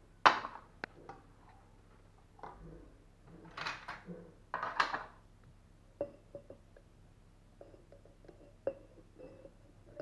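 Aluminium ingots clinking and scraping as they are handled and lowered with steel tongs into the crucible of an electric melting furnace. A sharp knock just after the start is the loudest sound, with two scraping bursts a few seconds in and light metal ticks after them.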